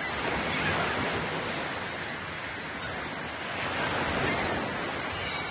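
Ocean waves washing: a steady rush of surf noise that swells and eases.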